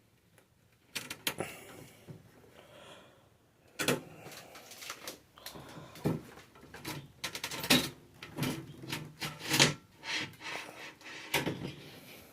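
A large glass pane being worked out of a wooden corner display cabinet: irregular knocks, rattles and scrapes of glass and wood as it is handled.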